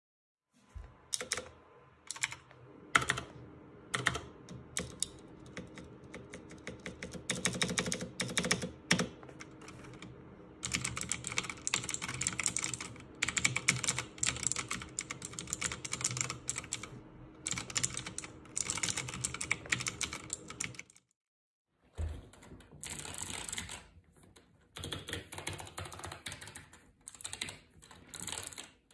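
Typing on a Razer BlackWidow Elite mechanical keyboard: a few single key presses, then fast runs of keystrokes. After a short break about 22 seconds in, typing continues on a Razer Huntsman Elite opto-mechanical keyboard, whose strokes sound brighter.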